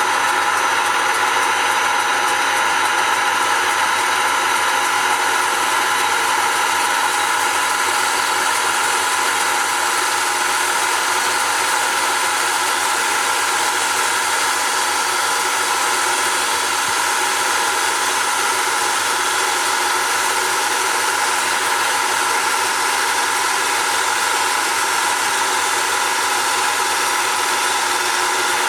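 Wood-turning lathe running at a steady speed, a constant machine hum and whine with several steady tones that does not change.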